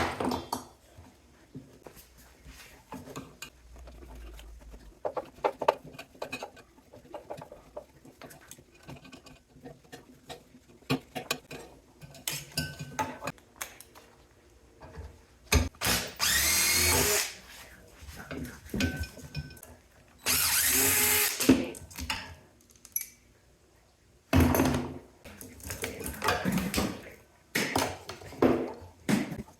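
Power drill running in bursts, with two longer runs of about a second and a half each, its motor speeding up and winding down. Between the runs, metal parts clank and knock as they are handled.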